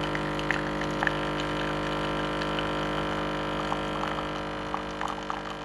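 Coffee machine's pump humming steadily as coffee streams into a mug, with a few faint ticks, fading slightly near the end.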